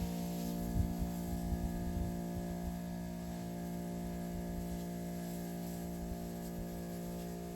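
A steady electric hum on one low pitch with many overtones, with some low, irregular thumps and rumble in the first couple of seconds.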